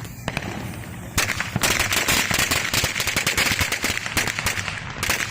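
A string of firecrackers going off: a couple of single pops, then from about a second in a fast, dense run of pops that lasts about four seconds and stops just before the end.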